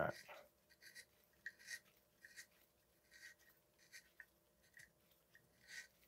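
Faint, irregular scraping ticks from a 9/16 pedal tap being turned slowly by hand through a bicycle crank arm's pedal threads, cutting out grit and corrosion buildup.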